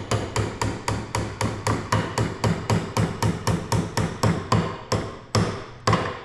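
Ball-peen hammer tapping a large steel snap ring around the shaft to seat it in its groove on a skid steer final drive motor, at about four quick taps a second. Near the end the tapping pauses briefly, then one harder strike.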